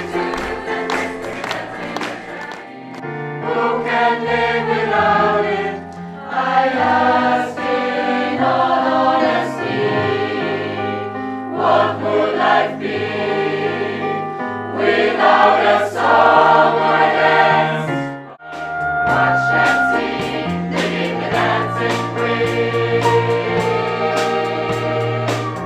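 A mixed choir of men and women singing a song in parts, accompanied by a drum kit and a keyboard piano, with steady drum and cymbal hits. The music drops away briefly about 18 seconds in, then the choir comes back in.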